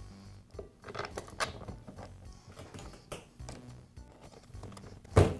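Light metallic clicks and scrapes of a hex key turning a screw in a roofing nailer's magazine, over soft background music, with a louder knock near the end.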